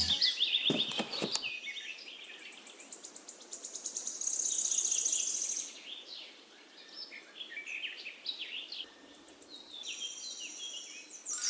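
Small birds chirping and twittering, with a fast, high trill lasting a second or two near the middle: a countryside birdsong ambience.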